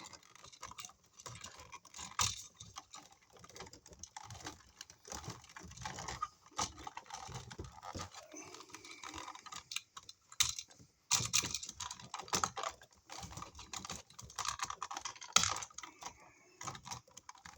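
Irregular clicks, taps and scraping of stiff insulated electrical wires being bent and pushed back into an outlet box, with a few sharper knocks.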